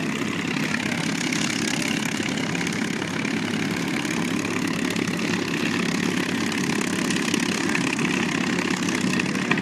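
Aircraft engine running steadily, an even drone with no clear change in level.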